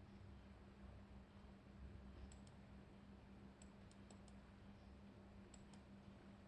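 Faint computer mouse clicks over near silence: a quick pair about two seconds in, four more around the middle, and another pair near the end, with a steady low electrical hum underneath.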